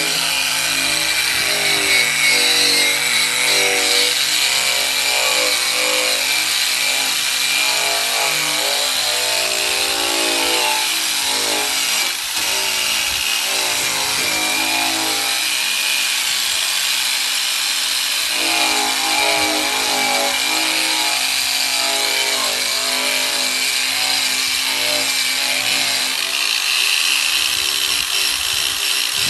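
Eastwood Contour SCT drum sander running continuously against bare sheet steel, its motor pitch wavering as the abrasive drum scuffs and cleans up the ground-down weld seams of a car's quarter panel.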